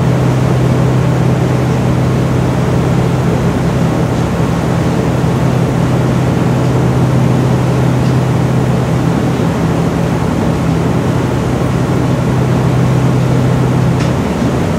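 Steady low engine hum of a river cruise boat under way, heard on board over a constant rush of wind and water; the hum shifts slightly near the end.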